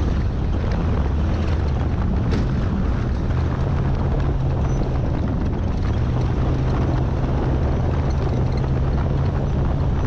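Jeep Comanche Ultra4 race truck's engine running steadily at speed on a dirt trail, under heavy wind and tyre noise on a hood-mounted camera. A sharp tick about two seconds in.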